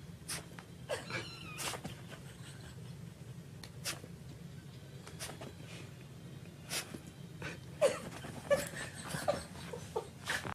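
A domestic pet giving a few short, faint calls about a second in and again near the end, with scattered clicks and knocks over a steady low hum.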